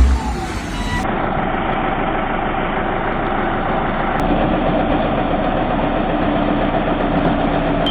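A heavy machine's engine running steadily, with faint steady tones over a rough, noisy drone.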